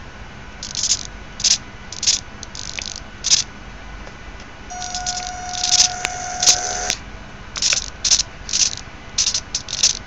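Small fischertechnik servo motor whirring in short, repeated bursts as it is driven back and forth from a joystick, with a steady whine lasting about two seconds near the middle.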